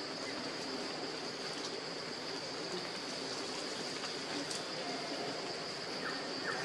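Forest ambience: a steady high-pitched insect drone over an even rushing hiss, with a few short high chirps near the end.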